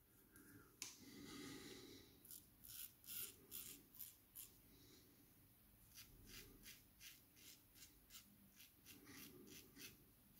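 Faint scratching of an open-comb safety razor with an Astra Platinum blade cutting stubble on the cheek and upper lip in short strokes during an across-the-grain pass. The strokes come in a short run, then pause near five seconds in, then go on steadily at about three a second.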